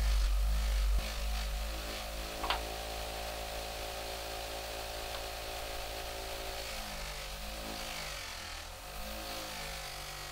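Bench grinder fitted with a buffing wheel running steadily, louder in the first second while a wooden handle piece is pressed against the wheel. A short sharp squeak about two and a half seconds in.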